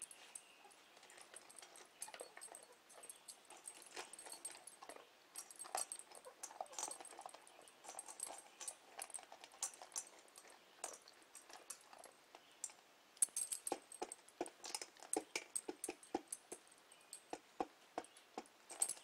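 Doberman crunching dry kibble from a stainless steel bowl, with small clicks of food and teeth against the metal. From about two thirds of the way in the clicks come quicker and sharper as a chicken pecks in the same bowl.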